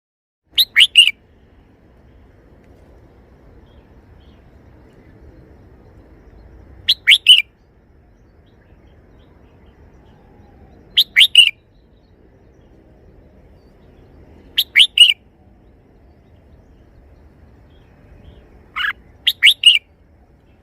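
Red-whiskered bulbul singing five short phrases a few seconds apart, each of about three quick, clear notes: its three-syllable song.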